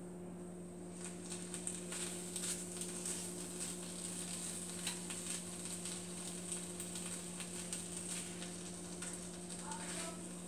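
Shrimp, broccoli and cauliflower sizzling in a hot wok as they are tossed with a silicone spatula, with scattered light taps and scrapes of the spatula on the pan; the sizzle picks up about a second in. A steady low hum runs underneath.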